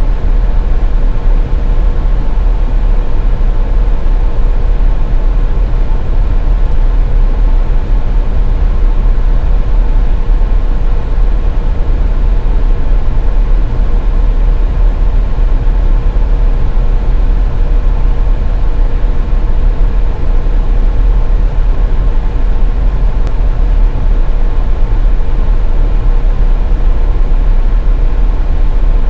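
Steady rumble of a car driving along a highway, heard from inside the car, with a faint steady whine over it.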